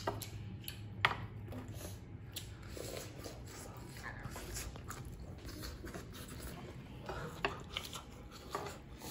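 Quiet eating sounds: chewing, with a few sharp clicks of wooden chopsticks against metal bowls and the griddle, about a second in and twice near the end.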